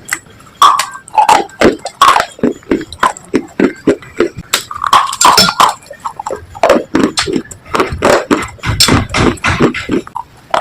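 Brittle slate being bitten and chewed: rapid, irregular crunches, a few a second.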